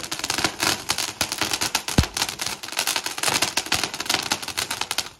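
Firecracker going off as a rapid, continuous crackle of sharp pops, with one louder bang about two seconds in.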